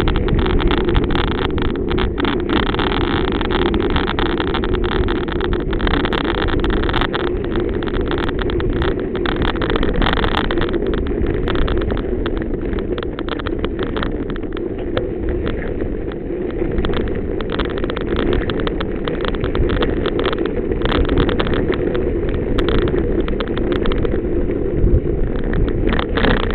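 A vehicle riding over a bumpy gravel dirt track: a steady rumble from the rolling and wind on the microphone, with many small knocks and rattles from the bumps.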